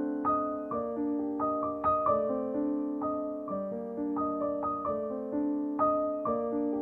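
Background piano music: a gentle melody of struck notes that ring and fade.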